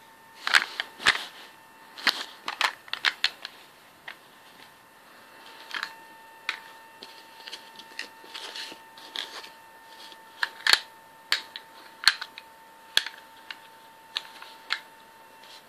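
Hard plastic coin slabs clicking and clacking as they are picked up, set down and knocked against one another, in irregular clusters of sharp clicks.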